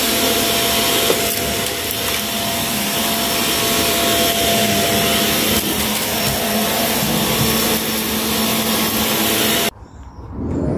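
Shark vacuum cleaner running on carpet with a steady hum, then switched off, cutting out abruptly near the end.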